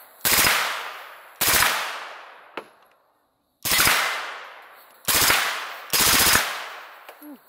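Suppressed Kalashnikov USA KP9 9mm machine gun with a Resilient RS9 can, fired in five short full-auto bursts of a few rounds each. Each burst is followed by an echo dying away.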